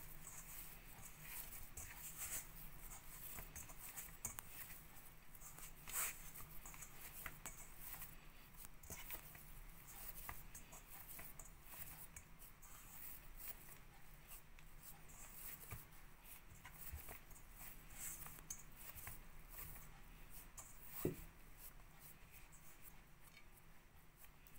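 Hand kneading a sticky jackfruit, jaggery and rice-flour dough in a stainless steel bowl: faint rubbing, squishing and scraping of fingers against the dough and the bowl, with a sharper knock about 21 seconds in.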